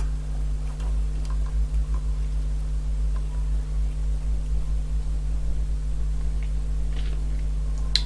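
Steady low electrical hum with a few faint small ticks; no other sound while the solder cools.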